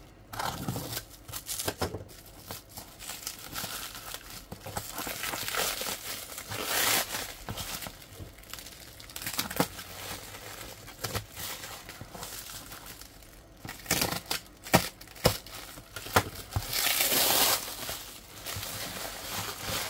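Black plastic bag wrapping being slit with a utility knife and torn and crumpled away from a cardboard box, giving irregular crinkling and rustling. A string of sharp clicks comes about three-quarters of the way through, then a loud burst of crinkling near the end.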